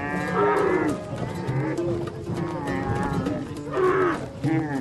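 Dromedary camels grumbling, several long, wavering calls overlapping one another.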